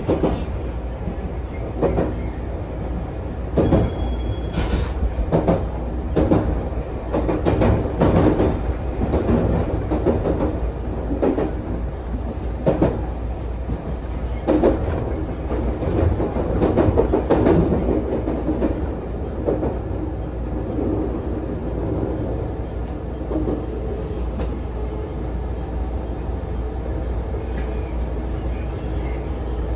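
JR 221 series electric train running at speed: a steady low rumble of wheels on rail with sharp clacks at uneven intervals, frequent in the first two-thirds and easing to a smoother run near the end.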